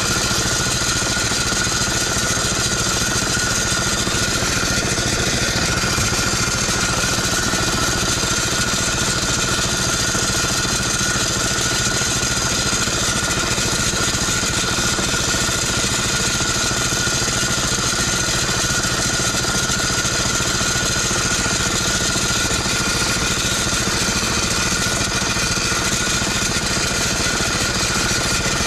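Small engine running steadily at a constant speed, unchanged throughout, with a fast, even chatter.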